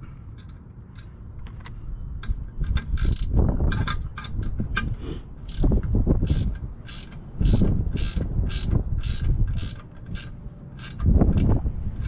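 Clamp being tightened around an exhaust tip to hold a turbo whistle in place. The tightening gives a steady run of short sharp clicks, about two or three a second, starting a few seconds in.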